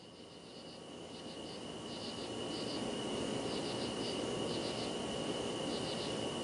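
Crickets chirping in short groups of rapid pulses, a few groups a second, over a steady high tone and low background noise; the ambience fades in gradually.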